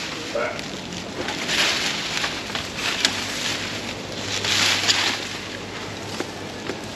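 Weeds and brush rustling and swishing in several separate strokes as they are raked and pushed aside with a long pole.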